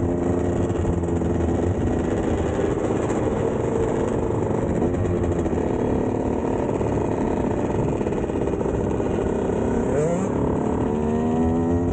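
Two-stroke dirt bike engines running as a group rides along, with the revs rising as the throttle opens near the start, about halfway through and again near the end. Wind rushes over the microphone throughout.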